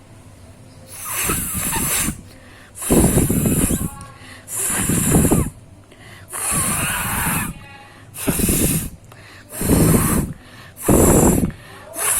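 A person blowing their nose hard, again and again, clearing mucus into a handkerchief: a run of forceful nose blows, each about a second long, coming roughly every second and a half.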